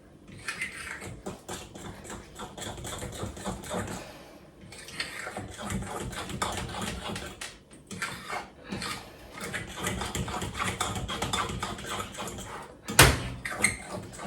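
A fork beating a thin batter-like dough in a bowl: a quick, continuous clatter of the fork against the bowl, pausing twice briefly. A single sharp knock comes near the end.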